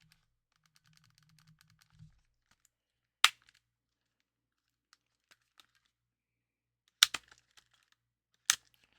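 Sharp, short clicks and taps of small hard parts and tools being handled at a bench: faint light ticking in the first two seconds, then a single loud click about three seconds in, two close together near seven seconds and one more near the end.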